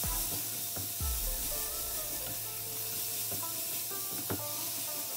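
Sliced bell peppers and onions sizzling as they shallow-fry in oil in a frying pan, stirred with a silicone spatula that taps against the pan a few times.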